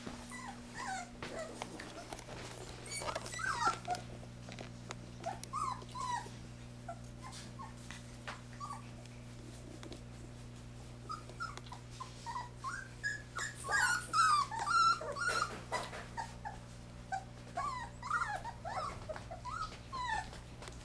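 Nearly four-week-old puppies whining and whimpering: many short, high, squeaky whines overlapping in bursts, busiest in the middle and near the end.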